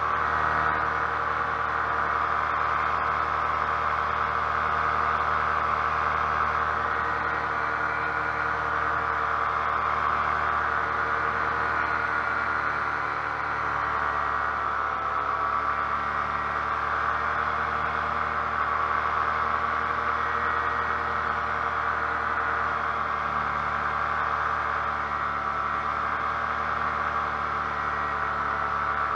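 Paramotor engine and propeller running steadily in flight, a constant droning buzz whose pitch wavers slightly about halfway through.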